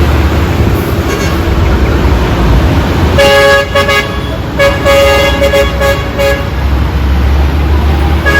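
Vehicle horn honking in several blasts over about three seconds, starting a little before halfway, over a steady rumble of road and engine noise from moving traffic.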